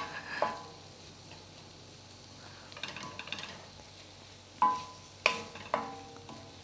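Wooden spoon stirring and scraping beans and onions in a stainless steel sauté pan over a low sizzle. A few sharp knocks of the spoon against the pan, the loudest about four and a half and five seconds in, leave the metal ringing briefly.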